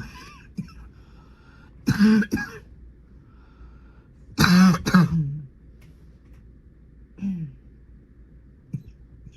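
A person sick with a bad cold coughing: a quick double cough about two seconds in, a harder cough a couple of seconds later that trails off falling in pitch, and a smaller throat-clearing cough near the end.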